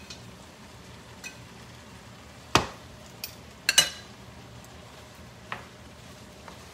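A metal utensil clinking and scraping against a skillet and plate as steak strips are scraped into the pan and stirred with vegetables. Several sharp clinks stand out, loudest about two and a half seconds in and a quick pair near four seconds, over a faint, steady sizzle.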